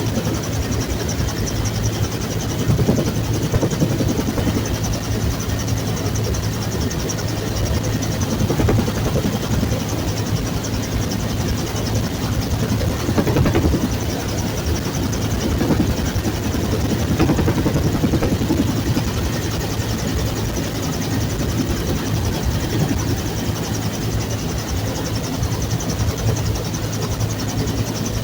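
Bell UH-1 Huey helicopter running steadily: a loud, unbroken rotor and turbine noise with a constant low hum underneath.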